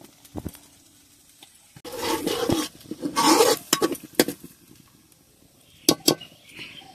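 Steel ladle stirring thin curry gravy in an aluminium kadai: two loud bursts of stirring and splashing about two and three seconds in, then several sharp clinks of the ladle against the pan.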